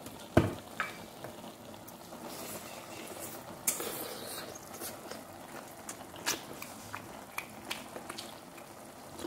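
Chopsticks clicking and scraping against a small porcelain rice bowl while eating, a dozen or so scattered sharp clicks with the loudest near the start, over quiet chewing.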